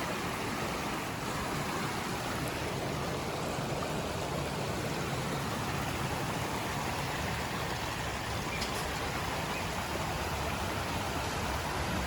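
Steady, continuous rush of flowing river water.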